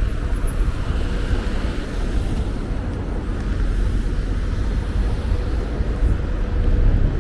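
Street ambience: a steady low rumble of traffic, with wind on the microphone.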